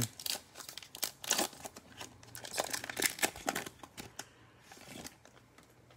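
Foil wrapper of a 2020 Panini Mosaic football card pack being torn open and crinkled in gloved hands: a quick run of sharp crackles that thins out after about four seconds.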